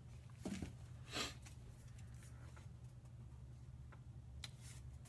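Quiet room tone with a steady low hum, broken by a few brief soft rustles of handling, about half a second in, just after one second, and near the end.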